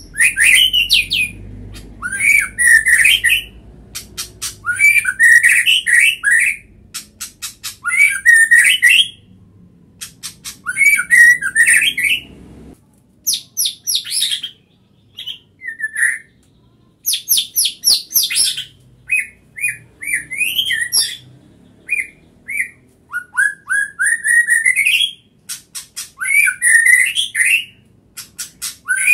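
White-rumped shama singing in a string of separate phrases, one every second or two, each mixing rapid high clicking notes with loud whistled glides, with short pauses between phrases.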